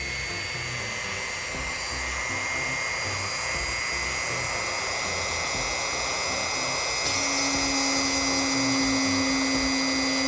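A handheld high-speed rotary tool running steadily with a high whine, spinning against plastic to make friction heat. A lower hum joins about seven seconds in.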